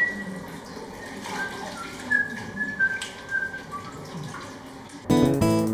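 A person whistling a few casual, wandering notes in a small tiled room. About five seconds in, acoustic guitar music cuts in abruptly.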